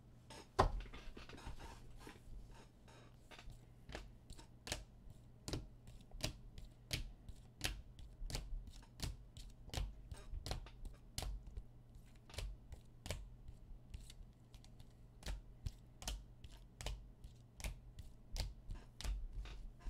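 Rigid plastic card holders clicking against one another as a stack of slabbed sports cards is flipped through one at a time, at about two sharp clicks a second.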